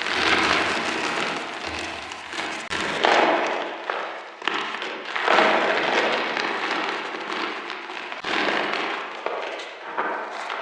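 Reformed chalk being crunched and crumbled, a dense crackling crunch that breaks off and restarts abruptly three times.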